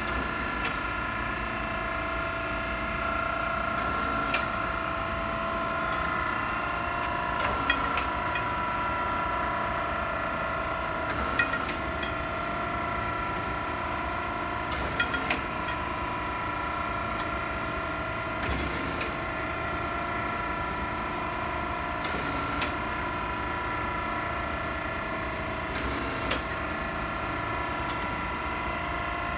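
Okamoto 16" x 24" three-axis hydraulic surface grinder running, with a steady hum and whine from the machine. A short sharp click comes roughly every three to four seconds.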